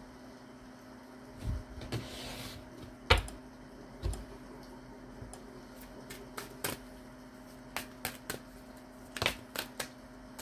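Tarot cards being handled and laid out: a run of light irregular taps and snaps of cards on a table, with a brief swish of cards about two seconds in and the sharpest snap about three seconds in, over a steady low hum.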